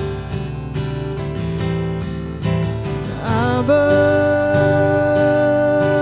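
Worship song: acoustic guitar strumming chords, with a voice sliding up about three seconds in and holding one long note.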